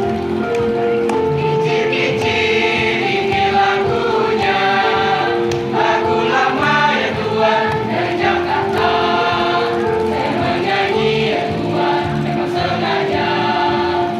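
Mixed choir of boys and girls singing an Indonesian regional song in parts, holding chords that change every second or so.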